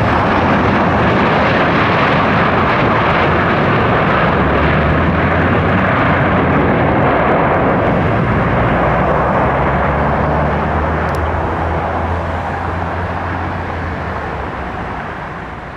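Jet engine noise from a Boeing 737-700's CFM56 turbofans, a steady roar that fades away over the last few seconds.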